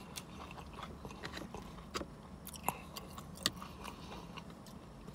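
Close-up chewing of crispy bacon: quiet mouth sounds with scattered small crunches and clicks, three of them sharper than the rest.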